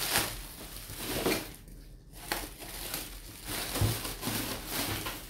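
Plastic bubble wrap crinkling and rustling on and off as it is handled and pulled out of a cardboard box.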